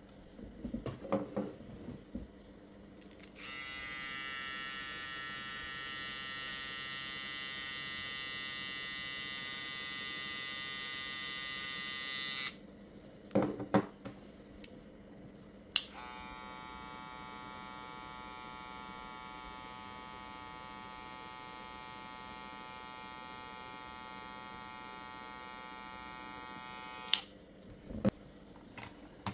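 Kemei 2230 and 2236 cordless hair clippers switched on one after the other, each running with a steady electric buzz: the first for about nine seconds, the second for about eleven. The first runs louder than the second, and there are sharp clicks around each switch-over.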